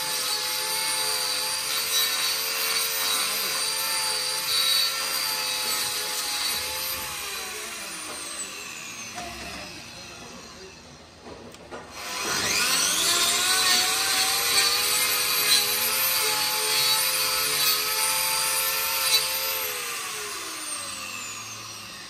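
Handheld angle grinder with a hoof-trimming disc grinding a cow's hoof. It runs and then winds down to a stop about seven seconds in. About twelve seconds in it starts again with a rising whine, runs steady, and winds down again near the end.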